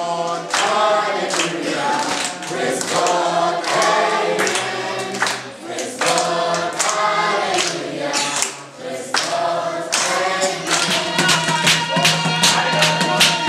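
A group of voices singing a song together in phrases, with rhythmic hand-clapping. About eleven seconds in, a steady held tone joins the singing.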